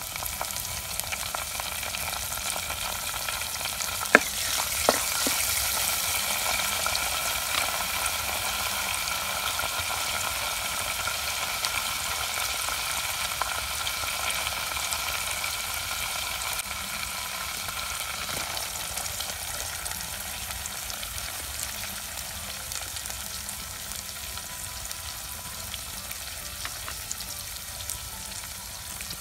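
Green leaves and sliced onion frying in hot coconut oil in a clay pot, tempering the curry. A steady sizzle with two sharp pops about four and five seconds in, slowly easing off.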